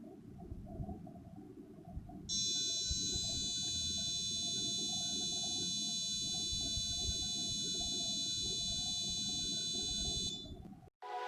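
The buzzer of an Arduino fingerprint door lock starts about two seconds in and sounds one continuous high-pitched tone for about eight seconds, then cuts off. It is the signal for an unrecognised fingerprint: access denied, and the solenoid lock stays closed. Before it there is a low rumbling background noise.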